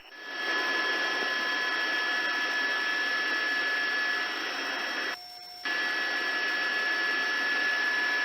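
Police radio channel hissing with no voice on it, carrying a few faint steady tones. It cuts out briefly a little after five seconds in, then comes back.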